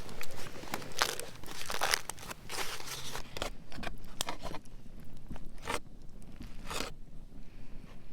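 Wrapping on a dish of apple crisp being crinkled and torn open: a run of quick crackly rustles that thins out after about five seconds to two last sharp crinkles.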